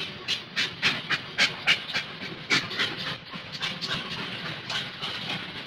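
Steam locomotive chuffing in a steady rhythm, about three to four exhaust puffs a second, a freight-yard sound effect.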